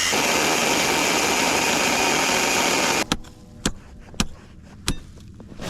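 A loud, steady machine noise with a high hiss and a faint whine cuts off abruptly about three seconds in, followed by a few sharp knocks and clatters.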